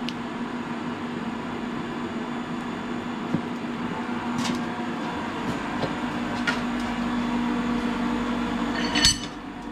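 Steady electrical hum of a running induction heater unit, with a few light ticks and clicks and one sharp metal clank near the end from the bench vise.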